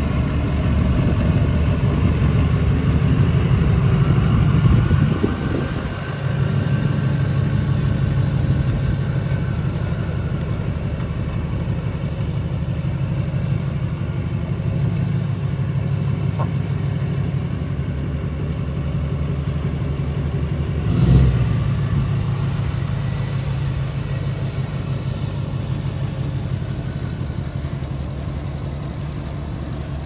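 Lifted Duramax diesel pickup's engine running at low revs as the truck drives slowly about, with a steady, even clatter from the exhaust. The engine note dips briefly a few seconds in and swells once, briefly, about two-thirds of the way through.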